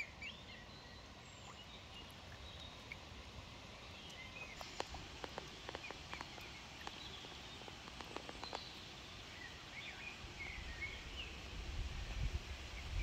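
Faint outdoor ambience with scattered short, high bird chirps, a cluster of small clicks in the middle, and a low rumble that grows near the end.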